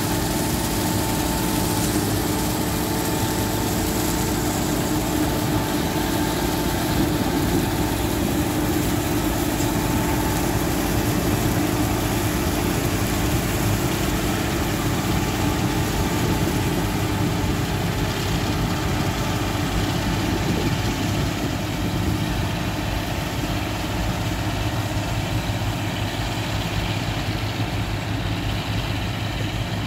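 New Holland TC5050 combine harvester running steadily, its engine and machinery droning without a break.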